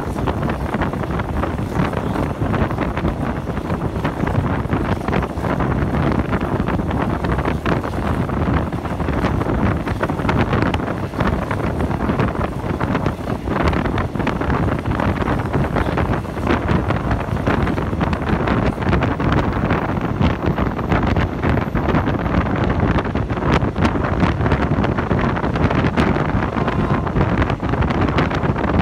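Steady rushing wind buffeting the microphone from a moving train's window, with the train's running noise underneath.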